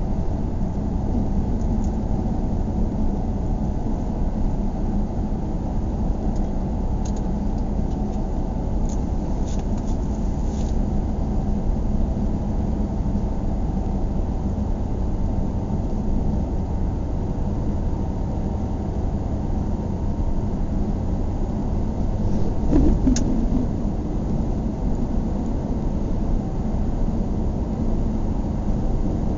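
Steady low rumble of a car driving on a paved road, engine and tyre noise together, with a brief louder sound about three-quarters of the way through.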